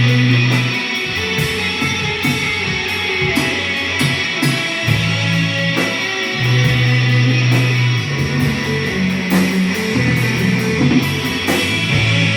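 Guitar-led rock music with long held bass notes that change every second or two, and regular percussive hits.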